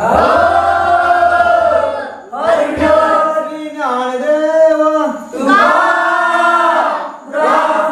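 Group of men singing a Marathi devotional bhajan to Ganpati together, unaccompanied by speech, in long drawn-out sung phrases that each fall away at the end, with short breaths between them.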